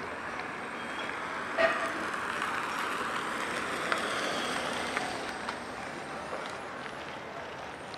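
A car drives past close by, its road noise swelling over a couple of seconds and then fading. A single sharp click sounds about one and a half seconds in.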